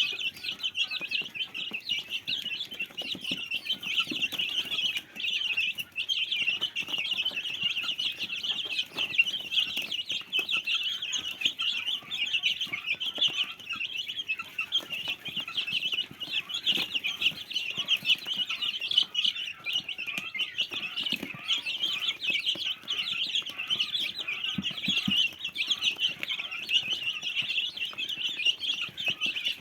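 A small flock of chickens: a constant chorus of high peeping over occasional low clucks.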